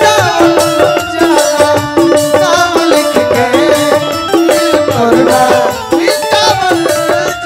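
Bhojpuri stage-show music with no singing: a short melody repeating over a quick, steady percussion beat.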